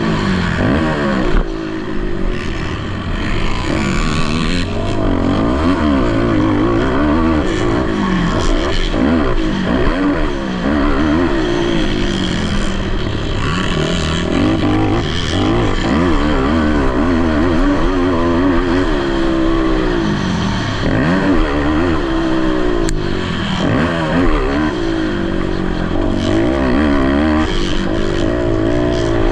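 Several racing ATV engines revving at once on a motocross track, their pitches rising and falling and crossing one another as the quads accelerate and shift.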